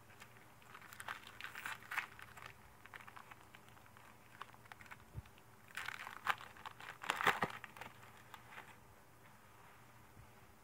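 Trading cards and their pack wrapper being handled: faint rustling and crinkling in two spells, the first about a second in and a louder one around six to eight seconds.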